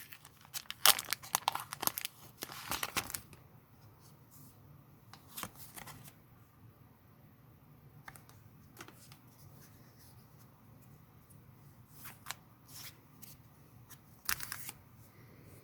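Foil wrapper of a Pokémon booster pack torn open and crinkled for a couple of seconds, followed by scattered faint rustles and clicks as the cards are handled.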